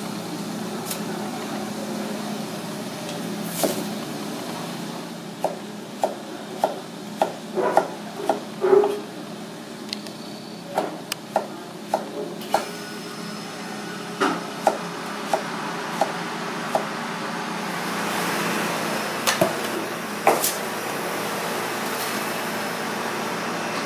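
Kitchen knife chopping florets on a plastic cutting board: a run of sharp knocks, one or two a second, over a steady rushing background from the gas burner. Near the end the rushing grows louder and a couple more knocks follow.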